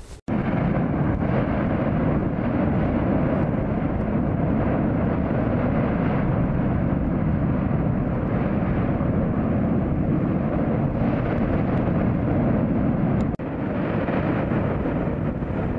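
Dubbed-in crater ambience: a steady, deep rushing rumble with no pitch to it, breaking off for a moment about 13 seconds in and then going on a little quieter.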